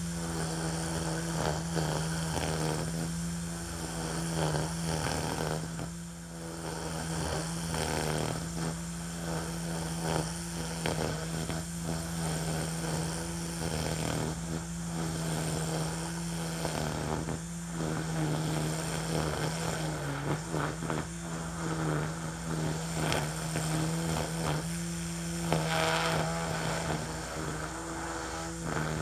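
Ryobi 40V battery string trimmer running steadily, its spinning line cutting through tall centipede grass: a constant hum with irregular crackling ticks as the grass is hit.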